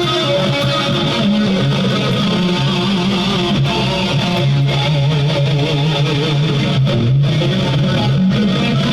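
Guitar-led music: electric guitar over a bass line, with some held notes wavering in vibrato.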